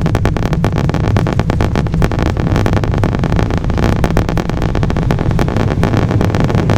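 Cabin noise of an Embraer E175 regional jet on its landing rollout: a loud, steady roar from its GE CF34 turbofans and the runway, with a constant fast rattle.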